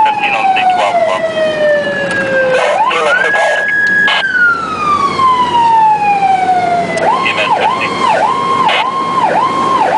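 Electronic emergency siren heard from inside the cab of the responding vehicle: a slow wail that falls, rises, holds and falls again, then switches about seven seconds in to a fast yelp of about two cycles a second, over road noise.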